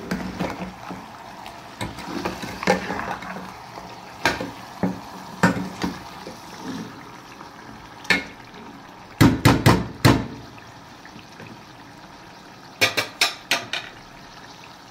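Steel ladle knocking and scraping against a metal pot as mutton and trotters are stirred while frying, over a steady sizzle. Single clanks come every second or two, then a quick run of about five clanks around the middle and another run near the end.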